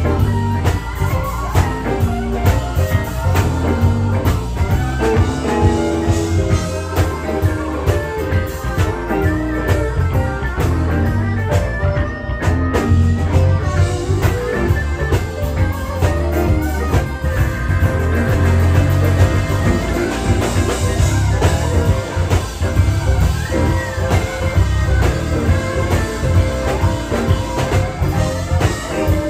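Live blues band playing, electric guitar to the fore with short bending lead phrases over a steady low bass.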